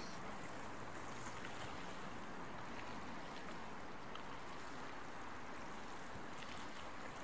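Steady wash of sea water and wind around a small boat, with a few faint ticks.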